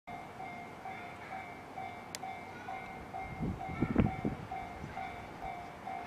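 Japanese level-crossing warning bell ringing, an even repeating ding at about two strikes a second. A few dull thumps sound near the middle, the loudest about four seconds in.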